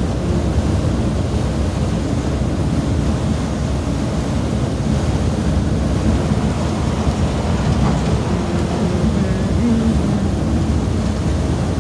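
Steady road and engine noise inside the cabin of a coach bus cruising on the highway.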